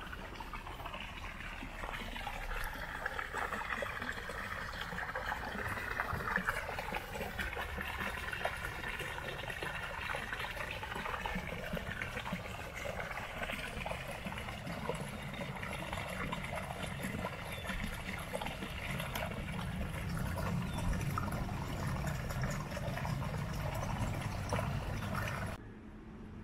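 Water pouring from a pipe spout into a small pond, a steady splashing trickle that stops abruptly near the end.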